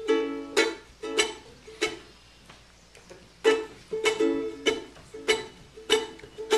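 Ukulele strummed in short single chords at a steady rhythm of about one every 0.6 seconds. There is a gap of about a second and a half midway, then the strumming resumes.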